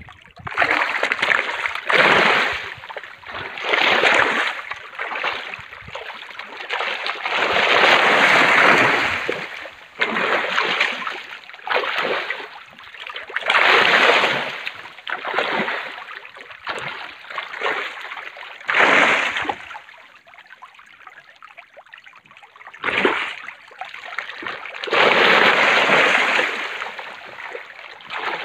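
Splashing of a crowd of farmed fish thrashing at the water's surface in a cage, in loud surges every couple of seconds with quieter churning between.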